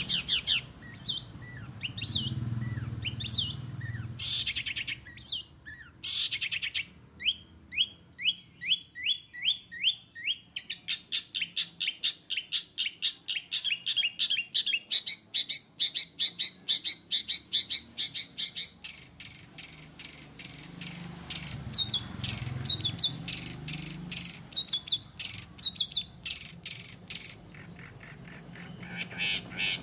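Long-tailed shrike singing a long, varied song full of mimicked calls: repeated rising chirps at first, then about ten seconds of very fast, dense trills, then mixed phrases. A faint low rumble sounds in the background twice.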